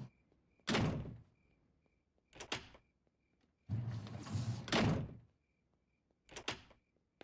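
Cartoon sound effects of a front door and heavy thuds: a few separate knocks and bangs, the longest and loudest about four seconds in, as a television set is hauled off the porch and the door slams shut. Faint, evenly repeated cricket chirps run underneath.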